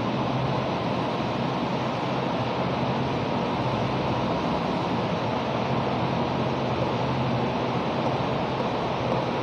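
Steady background noise with a low hum, even and unchanging throughout; no separate chalk strokes or knocks stand out.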